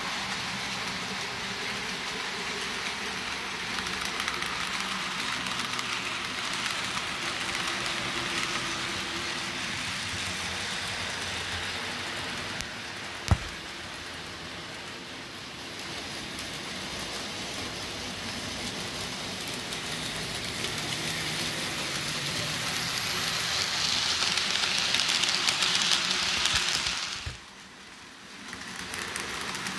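N gauge model trains running along the layout's track close to the camera: a steady rushing of the small metal wheels on the rails and the locomotive motors. It grows louder as a train draws near, with one sharp click about halfway through, and cuts off suddenly near the end.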